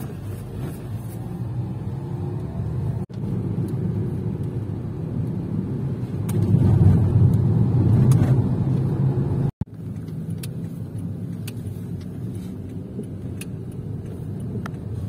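Low, steady rumble of a car in motion, louder for a few seconds in the middle, broken twice by abrupt cuts.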